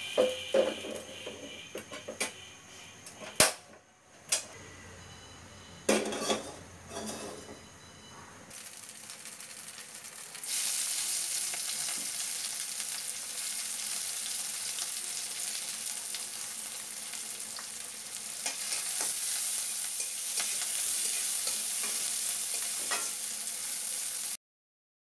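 Sliced onions and green chillies frying in oil in a metal karahi: a steady sizzle that sets in about ten seconds in and swells a little later on. Before it, a few sharp knocks and clinks.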